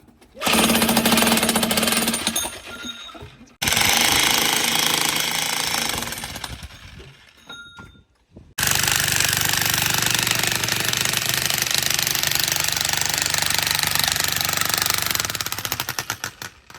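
Hilti electric chipping hammer running in three bursts of rapid hammering, stopping briefly twice and starting again; the last burst is the longest.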